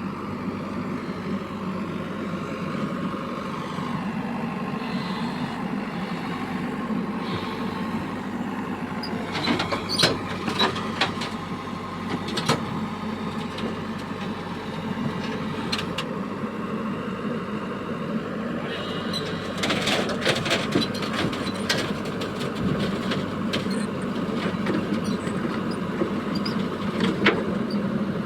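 Heavy diesel machine engine running steadily, with sharp metallic clanks and knocks now and then, most of them about two-thirds of the way through.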